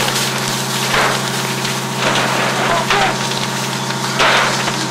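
Burning wooden garage crackling and popping, with hose water spraying into it, over a steady low engine hum. The noise surges louder about a second in, just after two seconds and about four seconds in.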